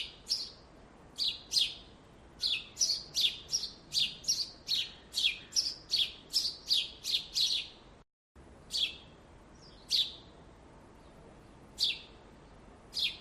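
Small birds chirping: short, sharp, high calls repeated in a quick run, broken by a sudden brief silence about eight seconds in, after which the chirps come more sparsely.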